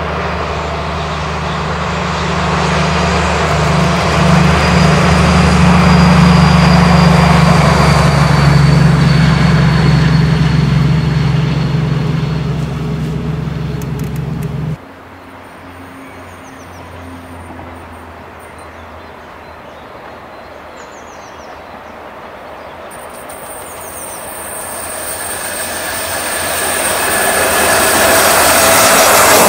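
DB class 218 diesel-hydraulic locomotive running under power as it hauls a regional train past, its engine drone swelling over the first few seconds and then slowly fading. After a sudden cut to a quiet scene with a few birds chirping, a second class 218 approaches, its engine growing steadily louder toward the end.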